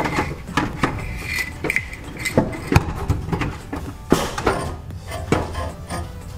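Irregular metallic clinks, knocks and scrapes from an exhaust flex pipe and catalytic converter assembly being worked by hand into a tight spot under a car, over a steady low hum.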